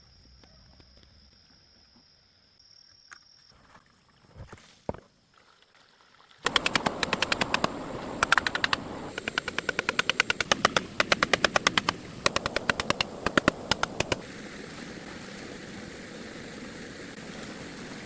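A rapid run of sharp mechanical knocks, about eight a second, coming in spells for several seconds, like a percussive power tool at work. It starts suddenly about six seconds in after a quiet stretch with a faint high steady tone, and gives way to a steady hiss.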